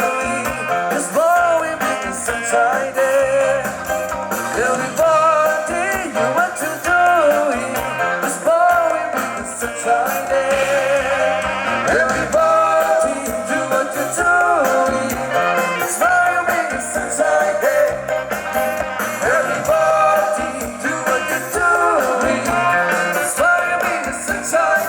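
A live band playing a song, with a singer's voice over the instruments.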